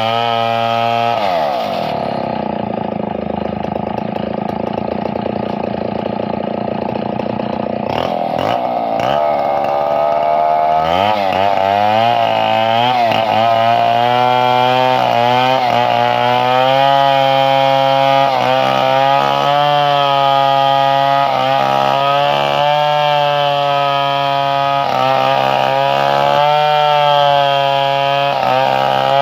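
Chainsaw engine running hard. About a second in its pitch drops as it bogs under load in a cut, it picks back up around ten seconds in, and then its revs keep rising and falling.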